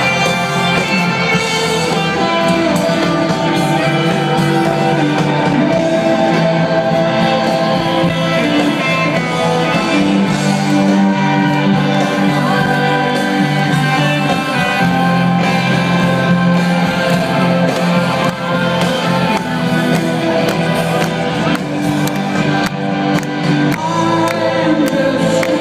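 Live rock band playing loudly, electric guitars and drums, recorded from within the crowd.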